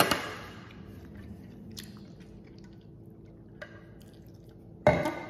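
A pause in a man's talking: a steady quiet room hum with a few faint mouth clicks, between a voice trailing off at the start and a short, loud vocal sound near the end.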